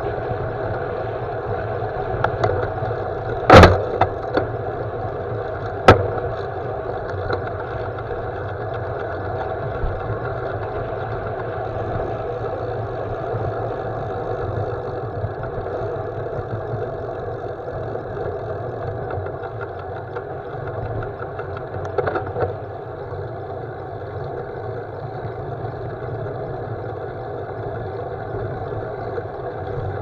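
Riding noise from a road bicycle picked up by a handlebar-mounted camera: a steady rumble of wind and tyres on rough tarmac, with two sharp knocks about three and a half and six seconds in.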